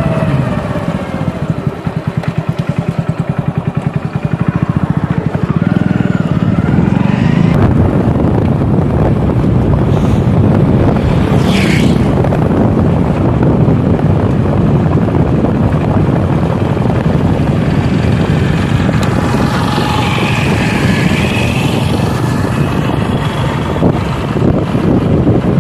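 Motorcycle engine running steadily at road speed, with wind buffeting the microphone. About two to five seconds in, the engine's rapid firing beat stands out clearly for a few seconds.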